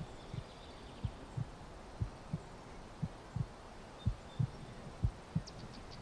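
A slow heartbeat: pairs of soft, low lub-dub thumps, about one beat a second.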